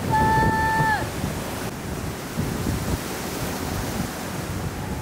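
Wind buffeting the microphone over breaking surf. In the first second a short, high call holds one pitch and then drops off.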